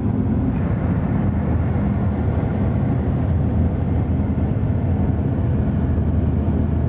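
Steady rumble of a moving car's road and engine noise, heard from inside the car, with no change in level.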